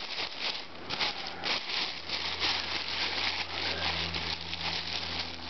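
Irregular rustling and crackling of grass being handled close to the microphone, with a steady low hum underneath.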